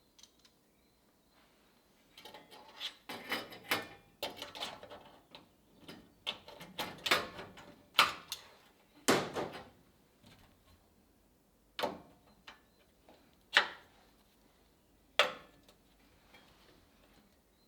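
Irregular knocks and clatters of hand tools and metal parts being handled and set down, busy for several seconds, then three single sharp knocks a couple of seconds apart.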